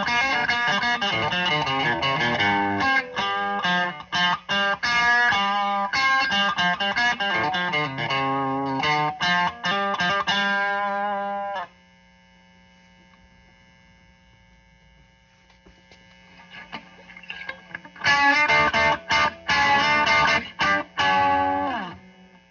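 1965 Gibson SG Junior electric guitar played through a 1975 Marshall JMP combo amp with overdriven distortion. The loud playing stops a little past halfway, leaving only the amp's steady hum for a few seconds. Playing then comes back, softly at first and then loud again.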